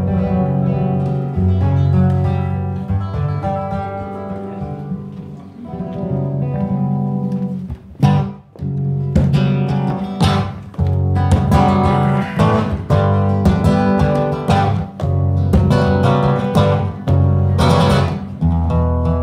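Live rumba flamenca on nylon-string acoustic guitars: strummed chords over a plucked bass line, with sharp percussive strums. Hand claps join in near the end.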